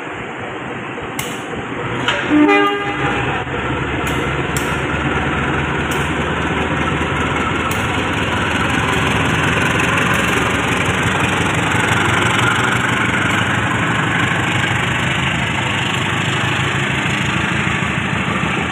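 CC203 diesel-electric locomotive giving a short horn blast about two seconds in, then its diesel engine running steadily under power as it moves off light along the tracks.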